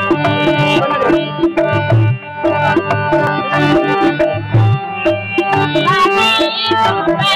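Instrumental opening of a Rajasthani (Marwari) folk song: a steady hand-drum rhythm under held melodic tones, with a wavering melodic line coming in about six seconds in.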